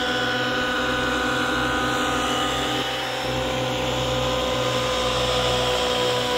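Nitro glow engines and rotors of 700-size RC helicopters running hard in aerobatic flight: a steady high mechanical whine that shifts a little in pitch about three seconds in.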